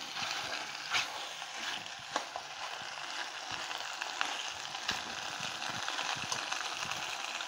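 Pork mince and pasta sizzling in a metal pan as they are stirred together with a spoon, with a few sharp knocks of the spoon against the pan.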